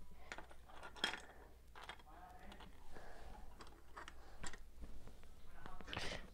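Plastic LEGO pieces handled and set down on a hard floor: a scatter of faint small clicks and taps.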